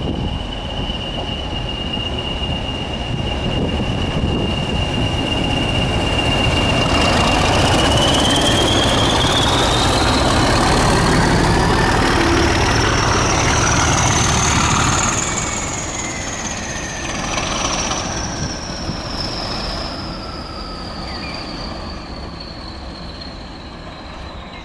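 A Class 20 and Class 37 diesel locomotive pair, both with English Electric engines, passing at speed with a nuclear flask wagon. A heavy engine and wheel rumble swells as the locomotives go by, loudest in the middle. A high whine climbs in pitch as they pass, then falls slowly as the train moves away.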